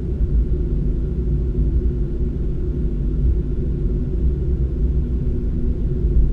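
Steady low rumble of road and engine noise inside a moving car's cabin while cruising along a highway.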